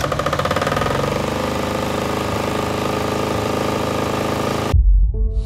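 Kohler single-cylinder diesel engine running on its very first start after one pull of the recoil starter, picking up speed over the first second, then running steadily. Near the end it cuts off suddenly into a loud deep boom.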